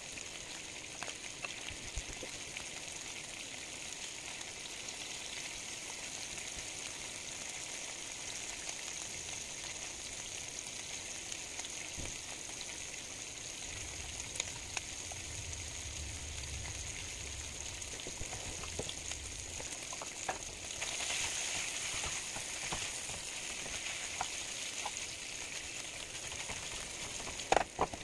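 Raw bacon sizzling in a nonstick frying pan early in cooking, a steady hiss with scattered small pops that grows louder about three quarters of the way through. Near the end a spatula clicks and scrapes against the pan as the strips are moved.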